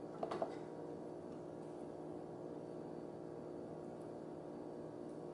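Steady low electrical hum of room tone, with a faint click or two of plastic parts being handled just after the start.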